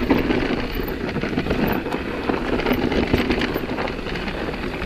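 Nukeproof Megawatt electric mountain bike rolling along a dirt singletrack: a steady crackle and rumble of the tyres on the ground, with frequent light rattling clicks from the bike.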